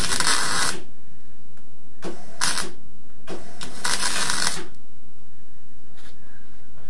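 Electric welding arc crackling in three short runs of stitch welds on a fabricated car sill panel: one just at the start, a brief one about two seconds in, and a longer one past the middle.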